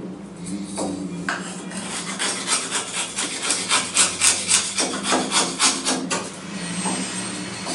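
Folding knife blade whittling a wooden block: quick repeated scraping shaving strokes, about three a second, strongest in the middle.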